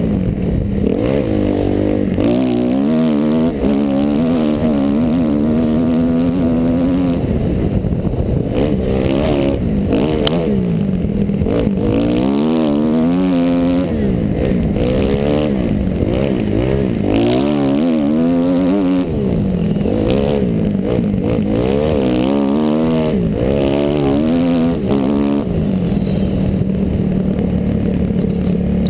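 Kawasaki KX dirt bike engine revving up and down under riding, its pitch climbing and dropping again and again with throttle and gear changes, then holding steadier near the end.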